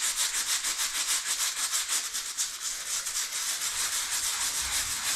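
A hand brush scrubbing a stone-and-lime-mortar floor in rapid, even back-and-forth strokes, stopping near the end. This is the acid-wash stage, with diluted hydrochloric acid, that strips the mortar dust off the stones.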